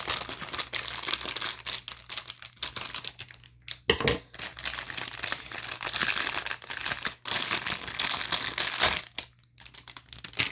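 Packaging being crinkled and torn open by hand, a dense irregular crackling that dies down about nine seconds in, with a single knock about four seconds in.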